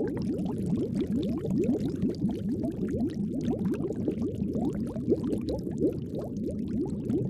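Bubbling water: a steady, dense stream of quick, low blips, each rising in pitch, over a soft watery rush.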